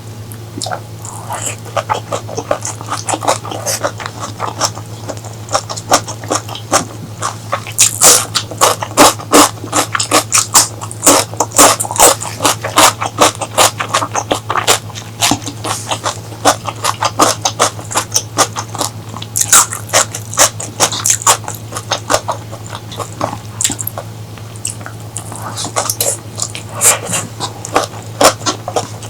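Close-miked chewing and wet mouth smacks of someone eating spicy curry, with dense, irregular clicks several times a second over a steady low hum.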